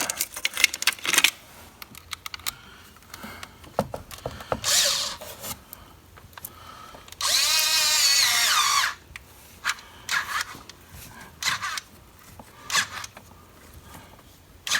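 Cordless power tool spinning a socket to run down a fastener for about a second and a half, its whine bending in pitch, with a shorter burst a few seconds earlier and clinks of sockets and tools around it.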